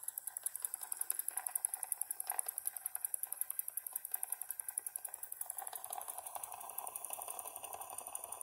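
Wilesco D3 toy live steam engine running at speed: its oscillating brass cylinder gives a rapid, even chuffing of exhaust steam, several beats a second.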